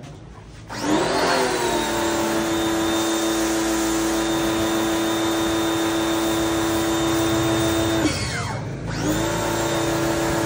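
Small electric pressure washer's motor and pump starting up with a rising whine and running steadily while the lance sprays water. About eight seconds in it winds down and stops, then starts up again about a second later.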